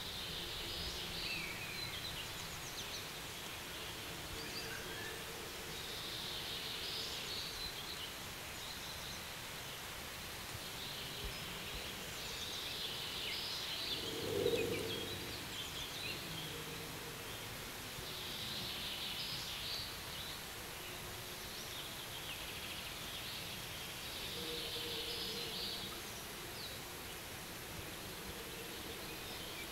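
Forest ambience: short bursts of high chirping birdsong recurring every five or six seconds over a steady hiss, with one louder, lower-pitched call about halfway through.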